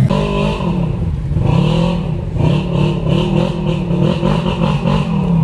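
Side-by-side UTV engine revving up and down repeatedly while crawling over a rough, rutted dirt trail, with some rattle from the machine.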